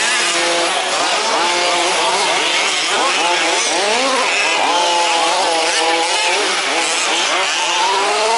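Several 1/5-scale RC trucks' small two-stroke petrol engines racing, their overlapping pitches rising and falling as they rev and pass by.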